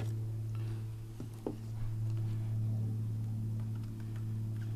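A steady low hum throughout, with a few faint clicks as small wire terminals and wires are handled.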